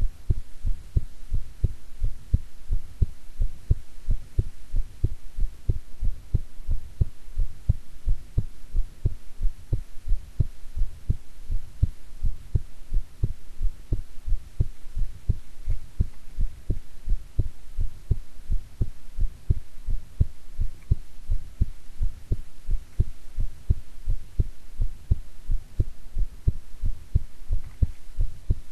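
A woman's heartbeat: a steady, even rhythm of low thumps, with a faint steady hum underneath.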